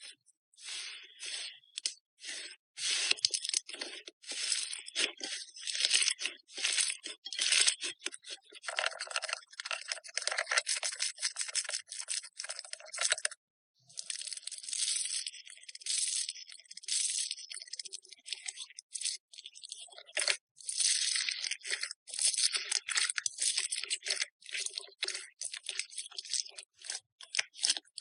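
Slime being squished and stretched, giving dense crackling and popping with a brief pause about halfway through.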